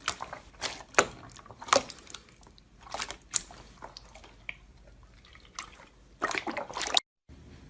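Slime being squeezed and poked by hand: sticky, wet clicks and pops spaced out over a few seconds, then a quick run of them near the end before the sound cuts off abruptly.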